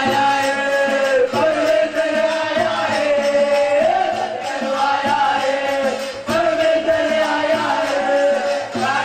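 Rajasthani Gavri folk music: a sung melody of long held, gliding notes over instrumental accompaniment, played for the dancers.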